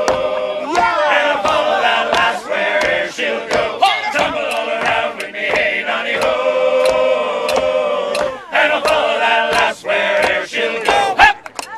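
A group of men singing loudly together, chant-like, over a steady beat of sharp percussive strikes. The singing breaks off near the end.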